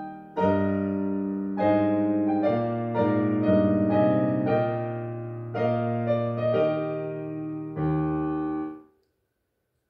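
Piano playing alone, closing a song with a slow series of held chords, each struck about a second apart. The last chord dies away near the end.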